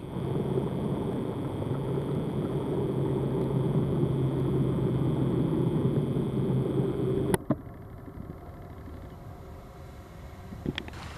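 An engine running steadily with a low hum. It cuts off at a sharp click about seven seconds in, leaving only quieter background noise.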